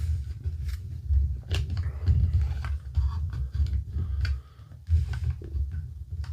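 Plastic action figure and its docking stand being handled, giving scattered small clicks and knocks over a low handling rumble as the figure is set up and keeps tipping backwards.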